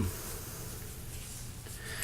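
Quiet room tone with a steady low hum, and a faint breath near the end.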